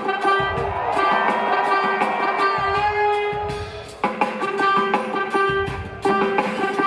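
Jazz-fusion band playing live: held chords over drums, with a bass line that comes in and drops out every couple of seconds.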